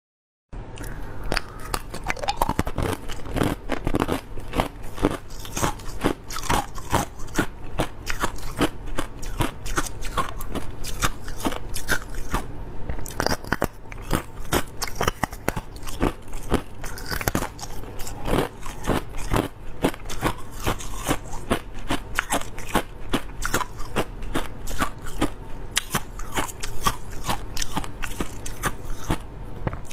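Close-miked crunching and chewing of clear crushed ice, a dense run of sharp cracks and crackles that starts about half a second in.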